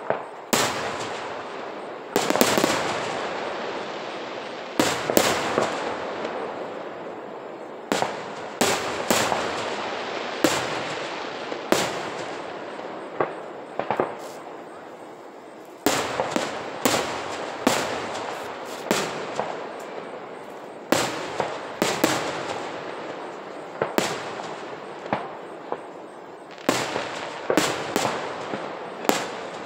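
Aerial fireworks display: shells bursting in the sky as a series of sharp booms at uneven intervals, sometimes several in quick succession. Each boom trails off into a long, fading rumble.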